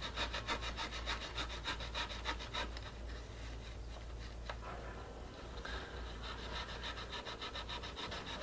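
Quick, regular back-and-forth rasping strokes of a hand tool working a part, about four or five a second. They weaken in the middle and pick up again near the end.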